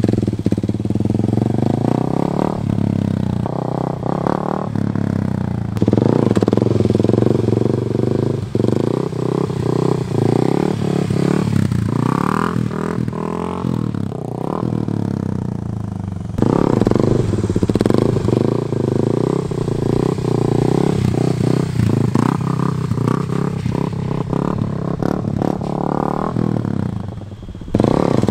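Kawasaki KLX300 dirt bike's single-cylinder four-stroke engine revving up and falling back again and again as the bike is lifted into wheelies. There are a few abrupt jumps in the sound.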